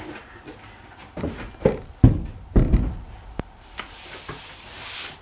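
Heavy steel rear axle shaft from an Eaton 2-speed axle being put down on the floor: several heavy thuds and metallic clanks between about one and three seconds in, the loudest about two seconds in.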